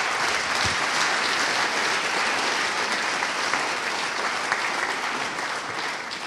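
Audience applauding: steady clapping from a large crowd, easing off near the end.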